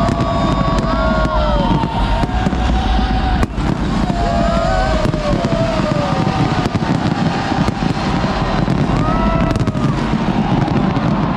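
Fireworks display going off continuously: dense overlapping shell bursts with crackling and a low rumble of booms. Gliding whistles rise and fall throughout.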